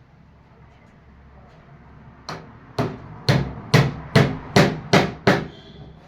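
A hammer striking wood, eight sharp blows about two a second, starting a little over two seconds in after a quiet stretch.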